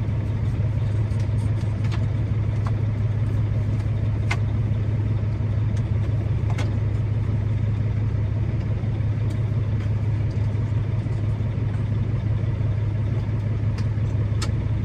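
Truck's diesel engine idling steadily, a constant low hum heard from inside the cab. Over it come several sharp clicks and taps as dash trim and switch panels are worked into place.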